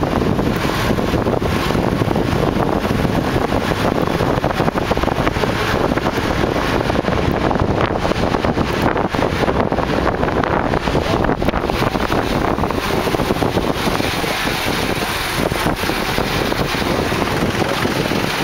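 Wind buffeting the microphone over the steady rumble of city street traffic, heard from a car driving through it.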